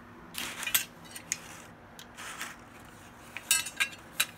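Steel parts of a 1967 Polish AK parts kit being handled and set down, clinking and knocking against one another: a scatter of short metallic clicks, several in quick succession about three and a half seconds in.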